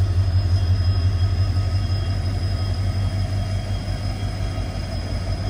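Diesel locomotive engine idling at a station halt: a steady low rumbling hum with faint high whines over it.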